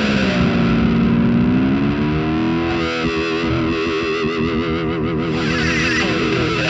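Loud distorted electric guitar music, with bending, wavering notes, that fades out near the end.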